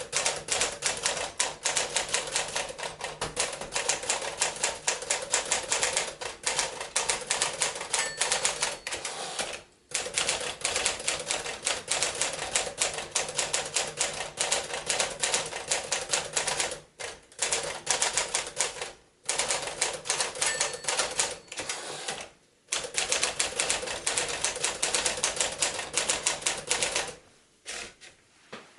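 1957 Smith-Corona Clipper manual portable typewriter being typed on: rapid, uneven key strikes of the typebars, broken by a few short pauses, stopping a little before the end.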